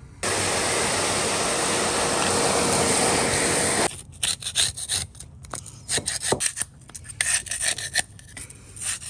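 A vacuum cleaner runs steadily and cuts off suddenly almost four seconds in. A metal putty knife then scrapes in short, irregular strokes, prying an old strip up off the tile floor.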